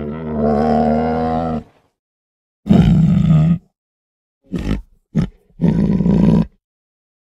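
Tiger roaring and growling in a series of five calls. The first is the longest at well over a second, two shorter ones follow about a second long each, with two brief grunts between them. Each call stops dead.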